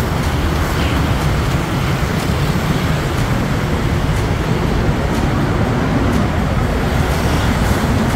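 Steady road traffic noise, a low rumble of vehicle engines and tyres on a busy city street.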